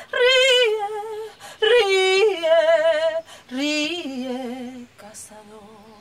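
A woman singing drawn-out notes with wide vibrato, in several phrases; about three and a half seconds in she drops to a lower, softer held note that fades near the end.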